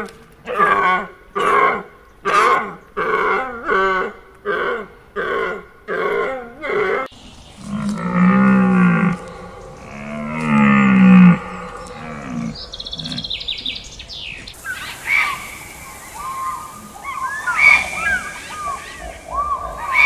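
A run of animal calls in succession: a quick series of about a dozen short, pitched calls, then two long low calls, then scattered high chirping calls near the end.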